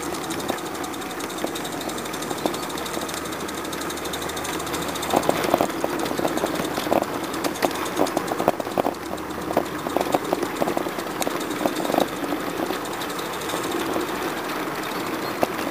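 Roundhouse Elsa live-steam garden-railway locomotive running, its exhaust chuffing rapidly over a steady hiss of steam, with sharp clicks scattered through the middle of the run.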